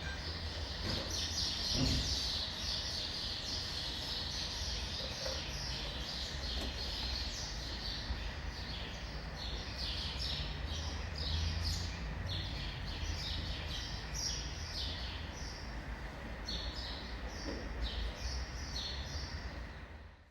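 Many small birds chirping in quick, repeated short notes over a steady low rumble of city traffic.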